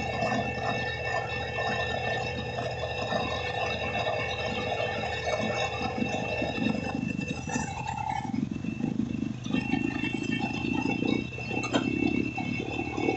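Heavy diesel construction machinery running steadily at a road-concreting site, with irregular rattling and scraping that grows louder from about seven seconds in.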